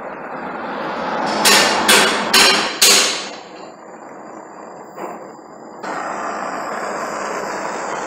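Four quick sharp taps about half a second apart, each trailing off briefly, over a steady hiss.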